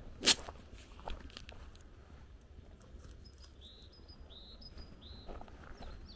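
A songbird singing a series of short, high chirps in the second half, over a faint low rumble. A sharp click near the start is the loudest sound, with a softer click about a second in.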